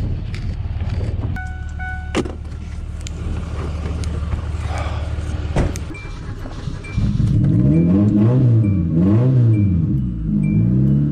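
A motor vehicle's engine running steadily, then revved up and down several times from about seven seconds in, with a short electronic chime repeating regularly over it.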